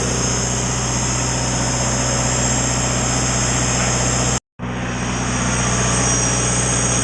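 John Deere 4045 turbocharged four-cylinder diesel engine of a standby generator set running steadily, with a steady high whine over the engine note. The sound cuts out for a moment about four and a half seconds in, then resumes.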